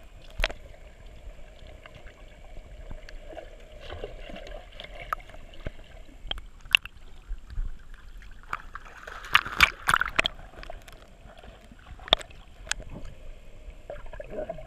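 Shallow pool water splashing and sloshing around the dogs' legs, heard muffled through an action camera's underwater housing, with many sharp clicks and a louder flurry of splashing about nine to ten seconds in.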